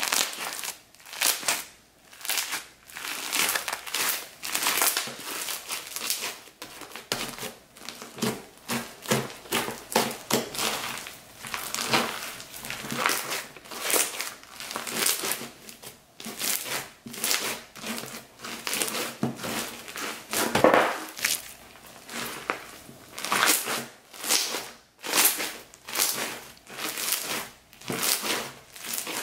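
Clear slime loaded with foam beads being squeezed and kneaded by hand, giving crunchy crackling and squishing in irregular bursts about once or twice a second.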